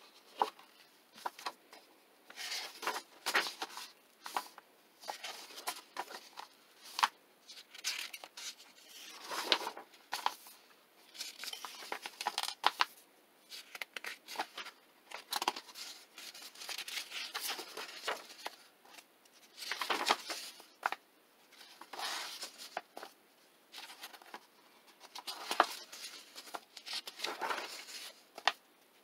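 Paper pages of a paperback coloring book being turned by hand one after another: a rustling paper swish every two to three seconds, with small crisp clicks as each sheet flips over.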